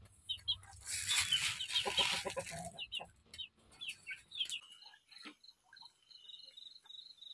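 Caged brown laying hens clucking as they peck at feed in a trough. After about four and a half seconds the clucking stops and crickets chirp steadily.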